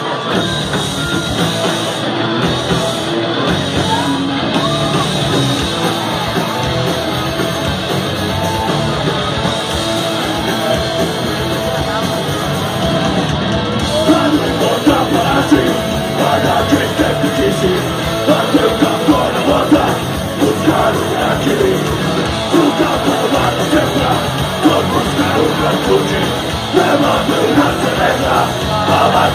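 Rock band playing live: electric guitars, bass guitar and drums, with shouted singing that comes in about halfway through as the music gets louder.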